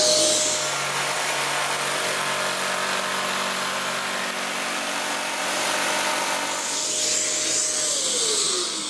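A power tool cutting wood while a Kärcher WD 3.200 wet and dry vacuum runs with it, switched on automatically through its power-tool socket. A steady motor whine falls in pitch near the end as a motor winds down.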